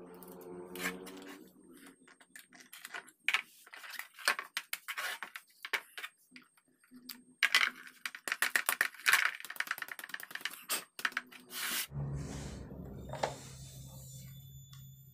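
Electric wood planer being taken apart by hand: a cordless drill's whir fades out, then a run of sharp clicks and knocks of screws, metal plates and plastic housing being handled and set down. About twelve seconds in a steady low hum starts.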